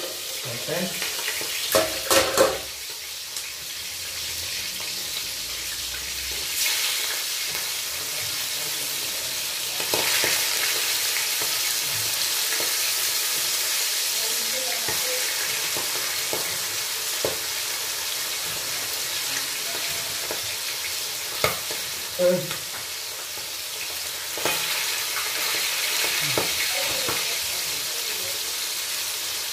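Bangus (milkfish) steaks frying in a pan of oil and cooking liquid, a steady sizzling hiss that swells a little about ten seconds in. A few clanks of the metal lid and tongs about two seconds in as the pan is uncovered.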